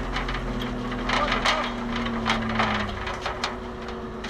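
A 1989 Toyota 4Runner converted into an airsoft vehicle runs at low speed along a rough dirt track, its engine a steady hum. From about a second in, a scatter of sharp clacks and knocks sounds over the engine, then it thins out after about three and a half seconds.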